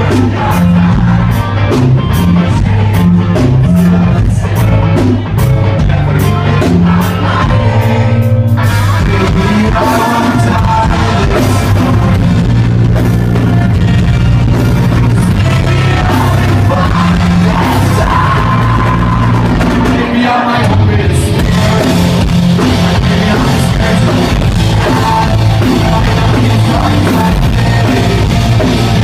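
Live rock band playing a song at full volume: electric guitars, bass and drum kit, with a singer's vocals over them.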